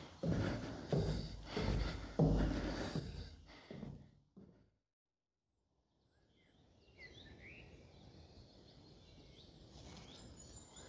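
Footsteps walking at an even pace, about one step every 0.7 s, fading out after about four seconds. After a stretch of silence, faint outdoor ambience with a few short bird chirps.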